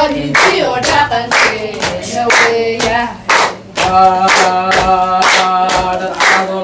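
Somali folk dance song: a group of voices singing to rhythmic hand clapping, about two claps a second. From about four seconds in, the voices join in a fuller, held chorus.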